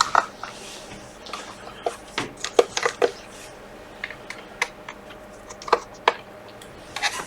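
Scattered light clicks and small metallic taps of a screwdriver and screws on a MacBook Pro's aluminium bottom case as the back panel is unscrewed, with a quick run of clicks in the middle.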